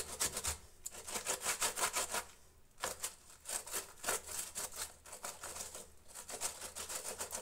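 A small tomato rubbed quickly back and forth on a plastic hand grater, a fast run of scraping strokes that breaks off briefly a few times.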